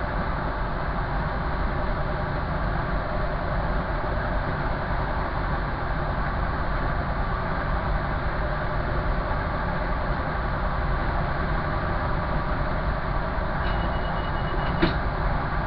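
Steady running noise of a train heard from inside the driver's cab: wheels on rail and engine at speed. Near the end a short high beep sounds for about a second, followed by a single sharp click.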